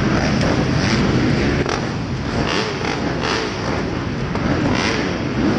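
Several motocross bike engines running in an indoor arena, with short revs that rise and fall in pitch every second or so.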